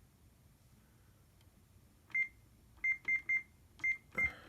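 Control-panel keypad of an HP LaserJet 3330 printer beeping as its buttons are pressed to enter the date and time. After about two seconds of quiet come six short, high beeps, three of them in a quick run. A clicking button press comes with the last beep.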